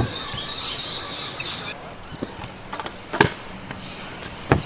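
Stunt scooter knocking on concrete as it is ridden: a knock at the start, then two sharp knocks about three and four and a half seconds in. A high hiss runs through the first second and a half and cuts off suddenly.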